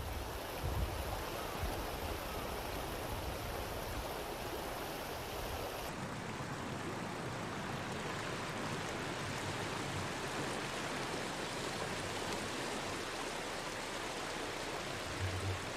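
Steady rushing of a shallow, fast-flowing river over a stony riffle. About six seconds in, the low rumble drops away a little.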